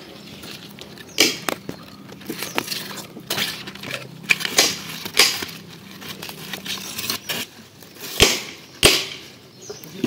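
Leaf stalks of leafy greens snapping as they are plucked by hand, with leaves rustling: irregular sharp snaps, the two loudest about eight and nine seconds in.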